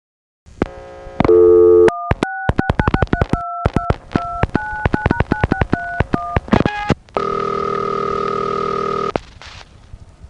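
Old landline telephone tones. A dial tone plays for about a second and a half, then a rapid string of about twenty short two-tone dialing beeps, then one steady tone held for about two seconds that cuts off suddenly.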